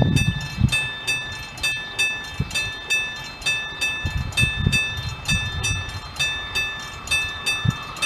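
A level-crossing warning bell ringing steadily, about three dings a second, while a freight train approaches. Irregular low rumbles sound beneath it.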